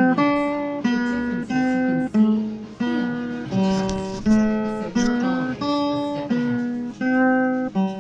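Acoustic guitar music, plucked notes and chords following one another about every half second.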